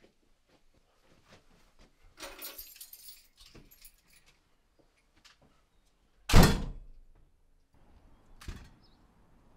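A bunch of keys jangling, then a few light clicks at the lock. About six seconds in, a front door bangs shut, loud with a short ringing tail, and a lighter thump follows near the end.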